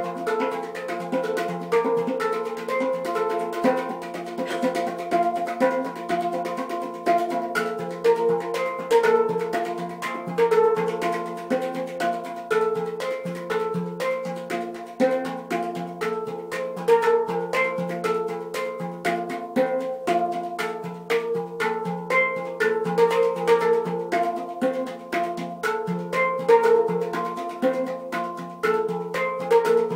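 Hang drum (handpan), a steel instrument struck with the hands, played in a quick rhythmic melody: several struck notes a second that ring on and overlap.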